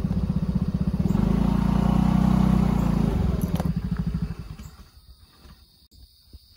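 SYM motorcycle engine idling, picking up speed for about two seconds, then dropping back and dying away as it is switched off about four seconds in, with the bike parked.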